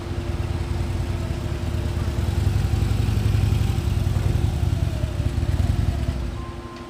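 Police motorcycle engine running close by, getting louder and loudest in the middle, then dropping off sharply about six seconds in as the bike comes to a stop.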